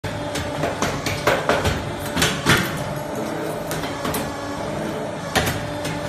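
Automatic wire bucket-handle forming machine running: a steady hum with a faint steady tone under irregular sharp clacks and knocks as the steel wire is fed through the rollers and bent by the forming tooling.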